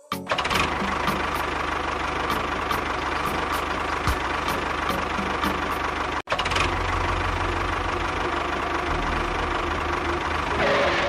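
A small motor running steadily, with a whine over its noise, broken off for an instant about six seconds in.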